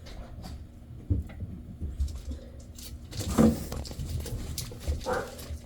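A dog gives two short yelps, a loud one about three seconds in and a softer one near the end, over a low steady hum.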